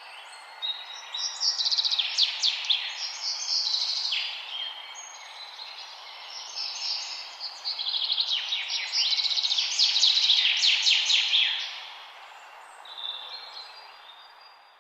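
Songbirds singing, several overlapping fast trills and chirps over a steady background hiss. The singing comes in two busy spells, then thins, and everything fades out near the end.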